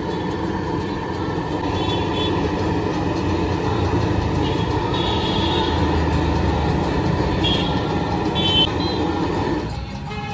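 Rolls deep-frying in a large iron kadai of hot oil, the oil sizzling and bubbling steadily as a wire spider strainer turns them. The sizzle drops off sharply near the end as the rolls are lifted out of the oil. A few short high tones sound over it.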